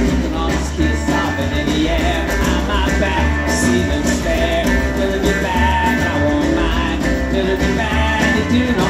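Live rock band performing with electric and acoustic guitars, bass and drums, with singing over them; loud and continuous.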